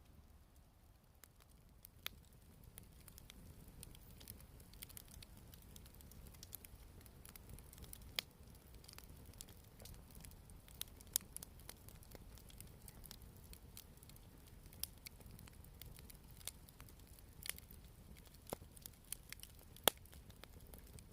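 Wood campfire crackling: irregular sharp pops and snaps over a faint low rumble, getting a little busier about two seconds in.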